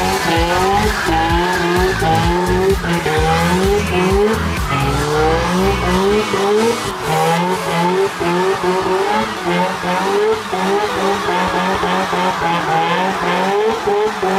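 Nissan 240SX's turbocharged 20B three-rotor rotary engine revving hard in a burnout, its pitch climbing and dropping back again and again, with the rear tyres squealing as they spin.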